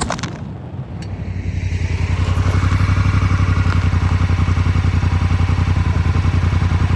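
Motorcycle engine running with a steady, even pulse, growing louder about a second in and then holding level as the bike rides on.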